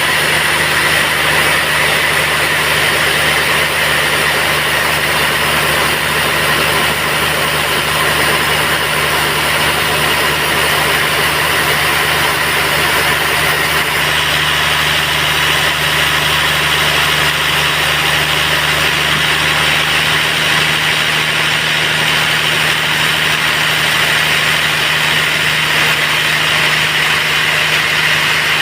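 Band sawmill running steadily with a loud, even mechanical drone as it saws a large durian-wood log into boards. The sound grows brighter and sharper about halfway through.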